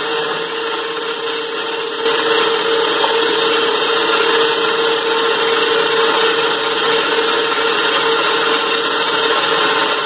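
Motor of a concrete curb-forming roller machine running steadily, a constant whine over a dense mechanical hum, growing a little louder about two seconds in.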